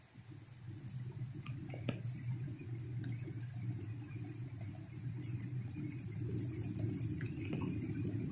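Diesel locomotive approaching slowly in the distance: a low engine drone that grows gradually louder, with scattered faint sharp clicks.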